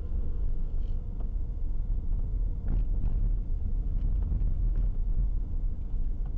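Low, steady rumble of a car driving slowly, its engine and road noise heard from inside the cabin, with a few faint clicks.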